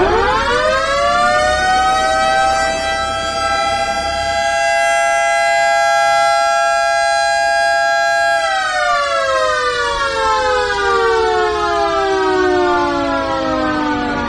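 Demolition warning siren winding up, holding a steady wail with two close pitches for several seconds, then winding slowly down. It is the warning sounded at a demolition site before the building is brought down.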